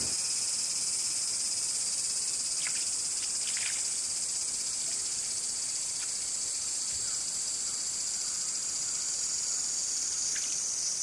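Steady high-pitched chorus of summer insects, unbroken throughout, with a few short faint chirps over it.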